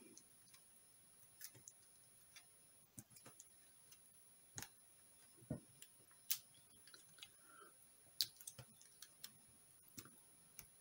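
Near silence broken by about seven faint, scattered clicks and taps of a metal-tipped craft pick working at a small paper card on a cutting mat.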